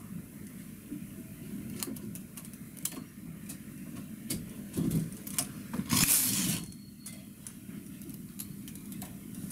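Small metal clicks and ticks of a steel hook tool against the needles of a single-bed knitting machine as knitted loops are picked up onto them, irregular and close together. A short rustling noise comes about six seconds in.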